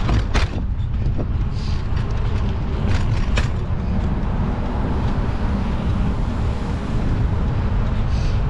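Wind rumbling on the microphone of a moving bicycle, over the steady noise of street traffic, with a few sharp clicks.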